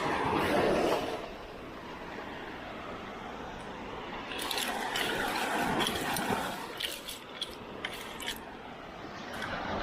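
Seawater sloshing and splashing, with a few short sharp clicks near the middle.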